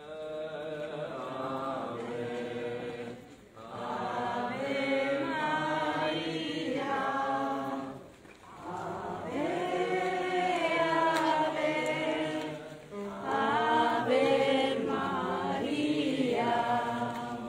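A group of voices singing a religious hymn together, in four long phrases with short breaks between them.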